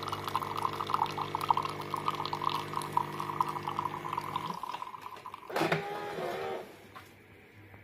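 Fully automatic coffee machine's pump humming steadily while coffee dribbles from the spout into the cup. The flow and hum stop about four and a half seconds in, and a short wavering tone follows a second later.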